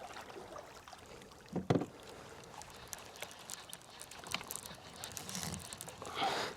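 Small knocks and clicks of handling on a fishing kayak, with one louder knock about a second and a half in.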